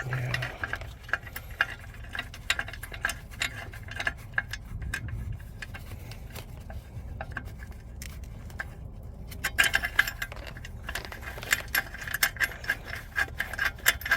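Metal exhaust parts and hand tools clinking and rattling, with a dense run of small metallic clicks from about ten seconds in.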